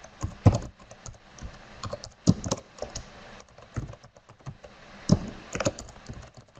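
Typing on a computer keyboard: irregular runs of key clicks with short pauses between them, a few strokes much louder than the rest.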